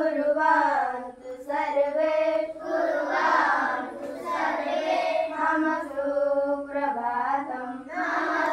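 A group of schoolchildren singing a prayer together in unison, in phrases with short breaths between them.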